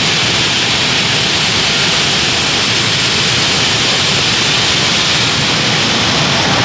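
Unlimited-class pulling tractor with several engines running at the start line: a loud, steady roar. A faint high whine rises near the end.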